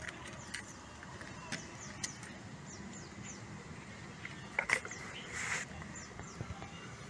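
Small clicks and a brief clatter, about four and a half seconds in, as a soldered pickup coil and a soldering iron are handled. A short hiss follows about a second later, and faint bird chirps sound in the background.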